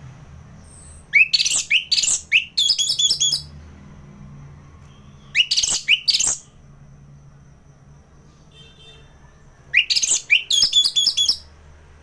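Orange-headed thrush singing in three loud bursts of quick, high-pitched phrases, each opening with rising notes: about a second in, in the middle, and near the end.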